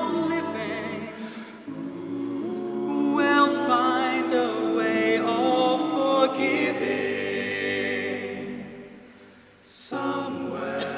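Male a cappella barbershop quartet singing sustained close-harmony chords. The chord fades away about nine seconds in, then a short hiss is followed by a new chord near the end.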